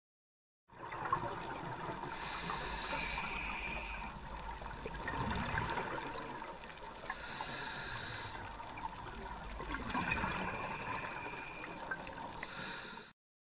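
Underwater recording from a reef dive: water noise with swells of bubbling from scuba divers' exhaled air, a few seconds apart. It starts about a second in and cuts off suddenly near the end.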